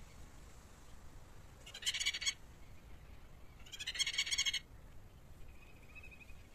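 A bird giving two harsh, buzzy calls about two seconds apart, the second one longer at about a second, followed near the end by a faint thin high whistle.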